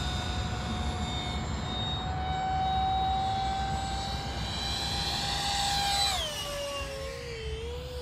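64 mm electric ducted fan of a Blitz RC Works F-16 foam model jet whining in flight: a steady high whine that climbs a little in pitch, then drops sharply about six seconds in and wavers at a lower pitch.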